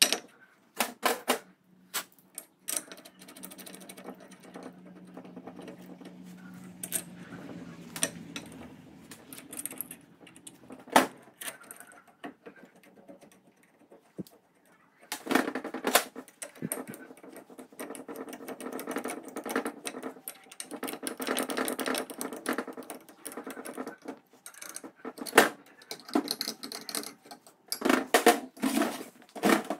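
Steel parts of a buggy chain-drive spool being handled and fitted by hand: irregular metallic clicks and knocks as the hub sleeve is slid into the bearing housing and the sprocket assembly is moved, with a longer stretch of metal scraping and rubbing in the second half.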